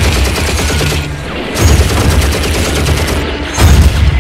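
Rapid automatic fire, a fast unbroken run of shots, over music with a heavy bass that swells about every two seconds.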